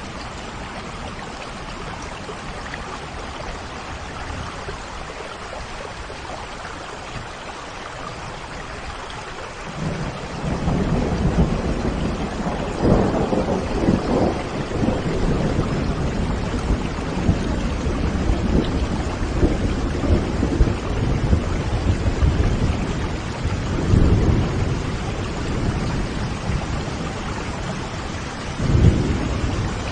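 Steady rain, joined about ten seconds in by rolling thunder that rumbles in several deep swells.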